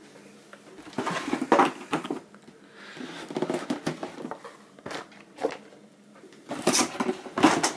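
Cardboard boxes and packaging being handled and moved on a table: irregular rustling and scraping, with a few short knocks.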